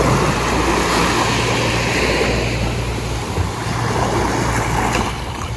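Small waves washing up and foaming on a sandy shore, a steady surf hiss, with a low wind rumble on the microphone.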